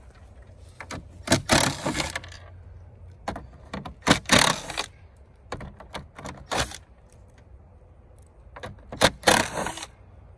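A 7 mm socket tool backing out the small screws in the back of a pickup's tow mirror housing. It goes in short, sudden bursts of clicking and rattling, loudest about a second in, around four seconds and near the end, with fainter ones between.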